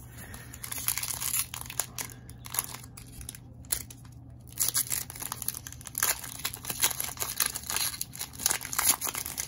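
Cellophane wrapper of a Panini Optic basketball card cello pack being torn open and crinkled by hand, a dense run of crackles in irregular spells.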